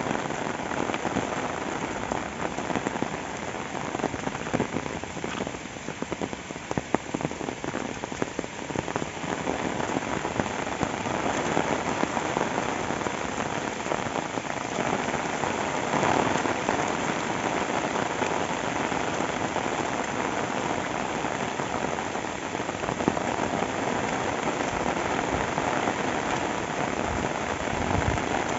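Steady rainfall, a dense even hiss with many sharp, close drop hits, strongest around four to nine seconds in.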